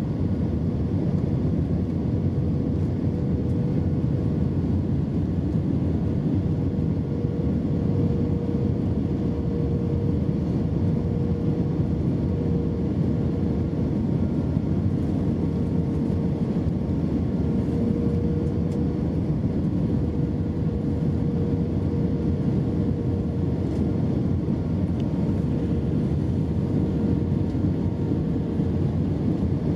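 Steady cabin noise inside an Airbus A320-232: the engines and airflow make an even rumble with a steady hum running through it, unchanging throughout.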